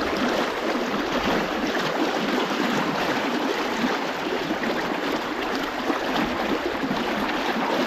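Fast river current rushing steadily around a wading angler, a dense, even rush of water.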